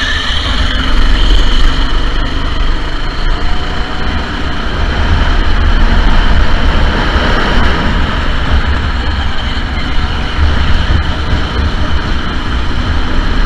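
Sodi SR4 racing go-karts running on the track, a loud continuous engine noise, with a heavy uneven low rumble on the microphone.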